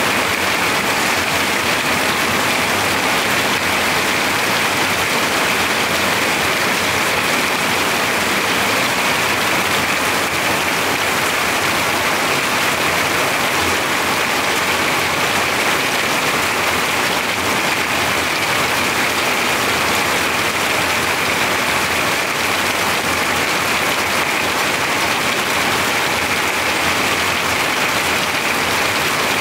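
Heavy rain drumming on a corrugated metal-sheet roof: a dense, steady, loud patter with no let-up.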